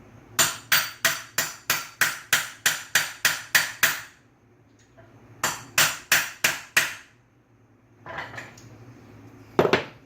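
Hammer blows on a 15 mm deep-well socket, driving a ball bearing back onto a Subaru SVX power steering pump shaft: a quick run of about a dozen sharp metallic strikes, about three a second, then a pause and five more. One louder knock comes near the end.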